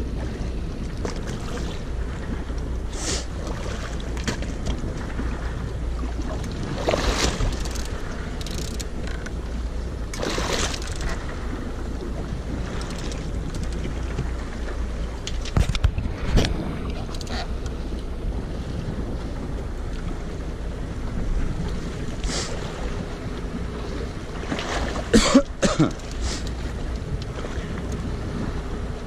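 Steady low drone of a sport-fishing boat at sea, with wind on the microphone and water washing along the hull. A few short louder knocks or splashes come through, the loudest near the end.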